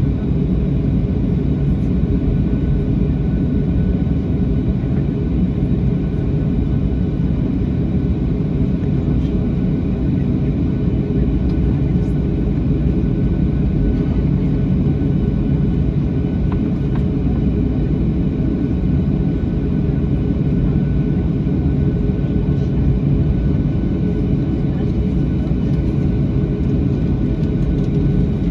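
Boeing 737-800's CFM56-7B turbofan engines heard from the cabin over the wing while the jet is on the ground: a steady, dense rumble with a faint steady whine above it, unchanging throughout.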